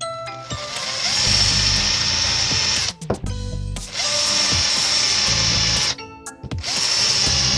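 Electric drill running in three long bursts, each spinning up as it starts, as it works wood.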